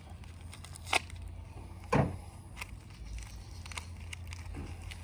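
Crackling and rustling of plastic packaging as a small part is unwrapped by hand, with scattered sharp clicks and one louder knock about two seconds in.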